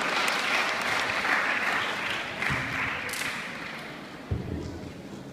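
Audience applauding in a large hall, the clapping slowly dying away, with a single low thump a little past four seconds in.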